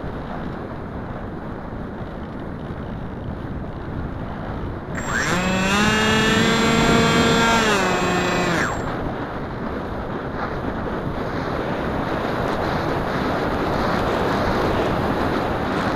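Air rushing over the microphone of a keychain camera riding on a Wing Wing Z84 flying wing. About five seconds in, the plane's electric motor and propeller throttle up into a loud steady whine that holds for about three and a half seconds, then cuts back.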